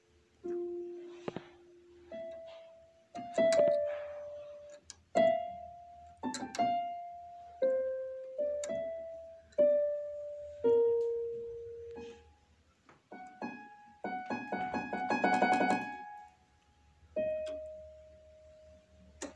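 Piano music: a slow melody of single notes, each struck and left to fade, with a brief flurry of rapid notes about three-quarters of the way through.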